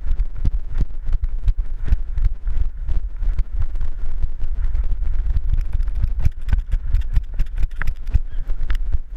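A dog-mounted action camera jolted in rhythm by the dog's running gait: a few knocks and thumps a second over a steady low rumble of wind and handling noise.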